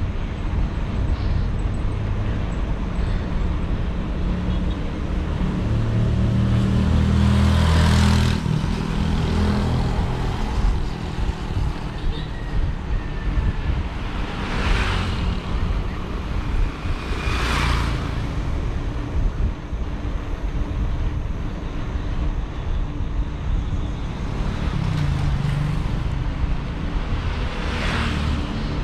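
Road traffic heard from a moving bike: a steady rumble of wind and road noise, with vehicles passing several times, the loudest a vehicle with a deep engine about seven to nine seconds in.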